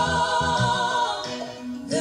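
A song playing: a singing voice holding long notes over music with a low bass line.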